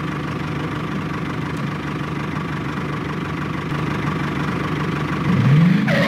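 A motor running steadily with an engine-like idling hum. About five seconds in it rises in pitch and gets louder, as if revving up.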